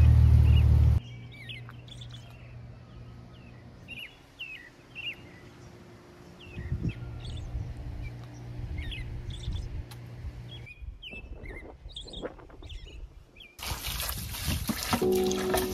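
Wild birds chirping and calling over a steady low hum. About a second in, the low rumble of a car engine cuts off abruptly. In the last two seconds, water from a garden hose sprays loudly into a plastic bucket.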